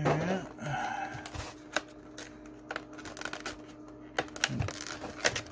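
Stiff clear plastic packaging from a Pokémon card box crackling, with irregular sharp clicks, as it is handled and pulled apart. The box is resisting being opened.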